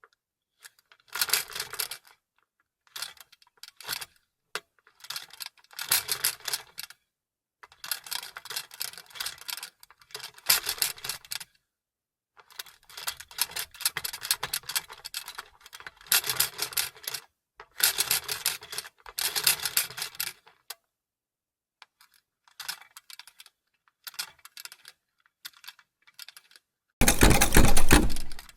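Vintage sewing machine stitching in short bursts, its needle and mechanism clattering with rapid clicks, stopping and starting again over and over. Near the end comes a longer, louder run.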